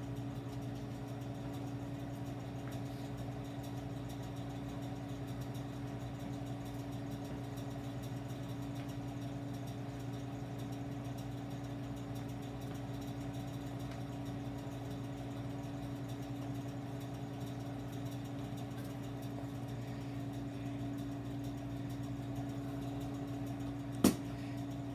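Steady low machine hum of the room, with a single sharp clink near the end as a small glass bottle is set down on a stainless-steel counter.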